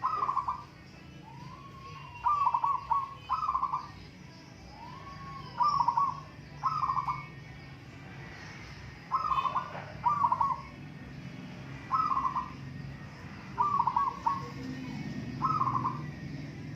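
Zebra doves cooing: about ten short rolling, trilled coos near 1 kHz, each about half a second long, coming every one to two seconds. A soft rising note leads into a couple of the coos.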